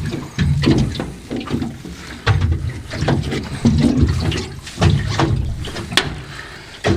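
Water splashing and sloshing in irregular surges, with scattered sharp knocks and clicks.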